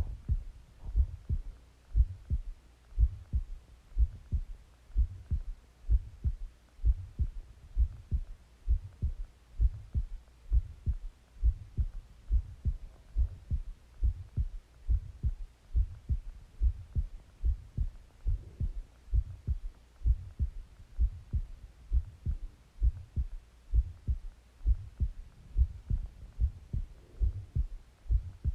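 A person's heartbeat heard close up against the body, steady low thumps at about one beat a second.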